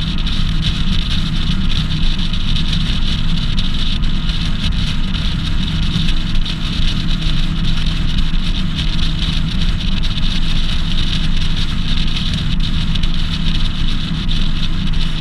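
A boat's outboard motor running steadily under way: a constant low engine hum with an even hiss above it.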